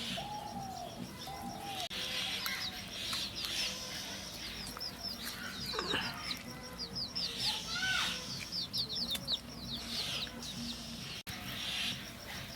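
Birds chirping in quick runs of short, high, falling notes, with a few lower, arched calls mixed in.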